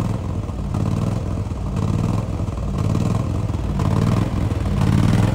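Diesel engine of a 2011 Ford F-550 bucket truck idling steadily, a low, even rumble.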